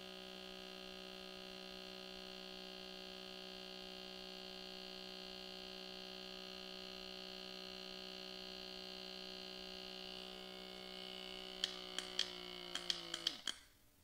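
Handheld skin vacuum (pore suction) device's small pump motor running with a steady hum. Near the end comes a cluster of sharp clicks, then the motor switches off and winds down.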